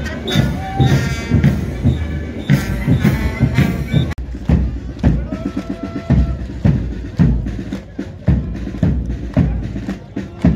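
Military band music driven by a steady marching drum beat, about two beats a second. The sound breaks off for an instant about four seconds in, then the drumming carries on.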